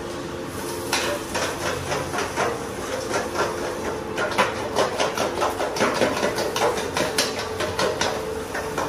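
Eggs being beaten in a stainless steel bowl, the metal utensil clinking rapidly against the bowl's side, faster and denser from about four seconds in. A steady hum runs underneath.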